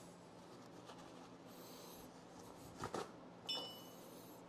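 Faint handling sounds at a lathe over a steady low hum: two light knocks about three seconds in, then a short metallic clink that rings briefly.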